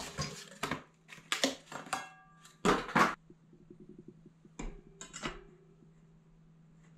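Cardboard packaging being pulled off a mountain bike wheel and handled: several scraping, rustling bursts in the first three seconds. These are followed by about a second and a half of fast light ticks and two short knocks about five seconds in.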